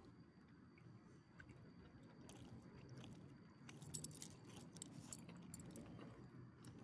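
Faint metallic clinking of a small dog's collar ID tags as the dog shifts under a hand, several light clicks in the middle, the loudest about four seconds in, over a low rustle.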